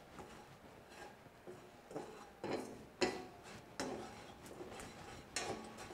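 Spatula scraping and tapping against a stainless steel frying pan as chopped shrimp paste dry-roasts in it without oil: several short, faint scrapes and clicks.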